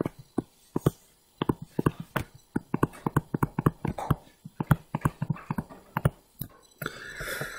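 Stylus tapping on a tablet screen while handwriting a word: a run of irregular sharp ticks, several a second.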